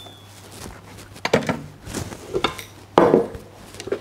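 Knocks and scrapes of a stand mixer's flat beater, tilting head and glass mixing bowl being handled and set down, a few separate knocks with the loudest about three seconds in.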